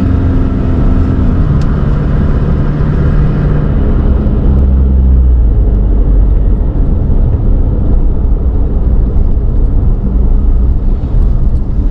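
A car's engine and road noise heard from inside the moving car. The engine note drops in steps over the first few seconds, leaving a steady low rumble.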